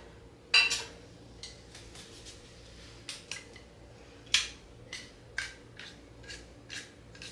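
Canning gear clinking and tapping as it is handled: a sharp clink about half a second in and another about four and a half seconds in, with lighter taps and ticks between.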